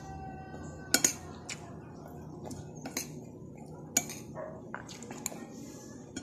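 Metal spoon clinking and scraping against a bowl while eating: a string of sharp clinks about every half second to a second, the loudest about a second in and again near four seconds.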